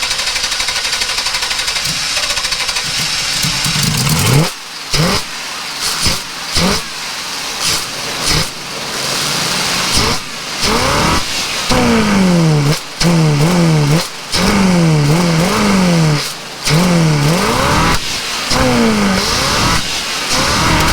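Throttle-body-injected 454 V8 in an RV starting and running rough, revved up and down repeatedly with stumbles and sudden dips. It runs unhappily, which the owner puts down to fuel and brake cleaner sprayed down the intake.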